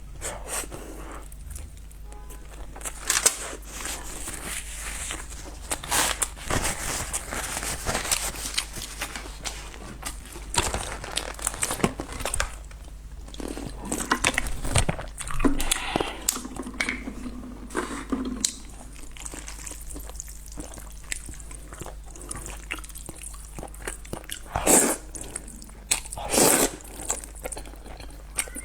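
Close-miked eating sounds of a person eating spicy noodles: chewing and biting, with many short wet clicks and smacks and a few louder bursts near the end.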